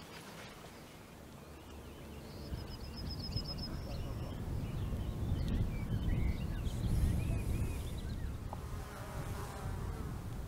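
A flying insect buzzing close by, swelling to its loudest in the middle and easing off near the end. Small birds call over it: a quick high trill about two and a half seconds in, then scattered chirps.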